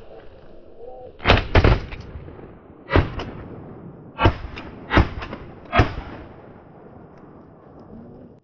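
A volley of about six shotgun shots from hunters firing at snow geese, two in quick succession and then the rest about a second apart. Each shot fades in a short echo.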